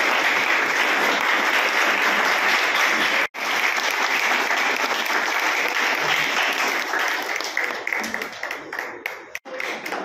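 Audience applauding steadily. The applause breaks off abruptly twice and thins to scattered individual claps near the end.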